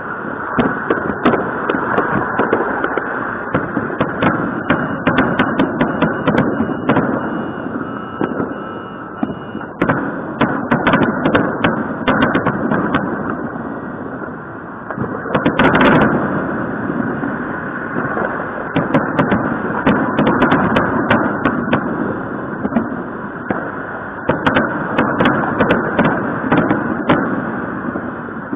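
Fireworks going off all around: a near-continuous stream of sharp bangs and crackles, some in quick clusters, over a steady rumble of more distant blasts.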